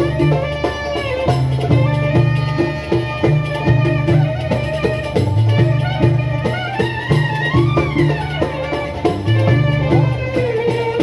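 Ottoman-style traditional folk music: a clarinet melody that bends and slides in pitch, over a moving bass line and regular drum strokes.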